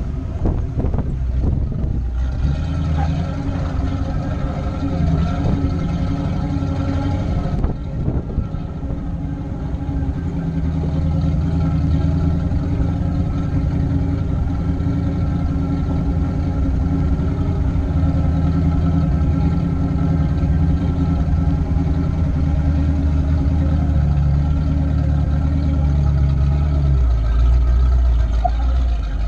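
Jeep engine running steadily at crawling speed on a rock and dirt trail, with tyre and drivetrain rumble. The low rumble grows heavier near the end.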